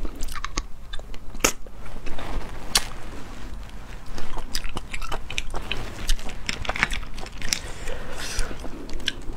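Close-up mouth sounds of eating spicy sea snails: sucking the meat from the shells and chewing, with many short wet clicks and smacks.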